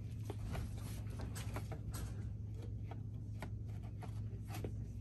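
Steady low hum of a shop interior with scattered light clicks, taps and rustles of small plastic toys and packaging being handled on a shelf.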